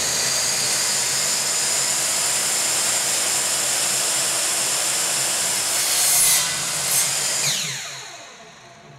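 Ryobi compact miter saw running at full speed while its blade cuts a 45-degree mitre through a wooden strip, with two brief louder moments about six and seven seconds in. The motor is then switched off and its whine falls away as the blade spins down.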